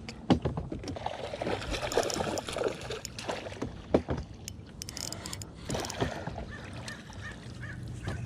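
Water splashing with scattered knocks and clicks as a hooked shad is worked to the net beside a fishing boat, over a low steady hum. The splashing comes in two patches, about a second in and again around six seconds in.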